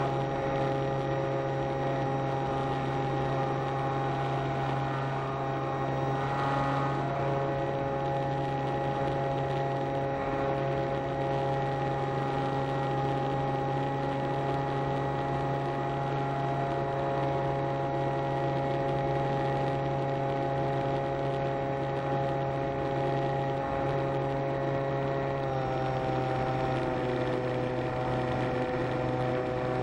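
Electric motor and propeller of an RC model airplane droning steadily in flight. The pitch steps up slightly about six seconds in and drops a little near the end as the throttle eases.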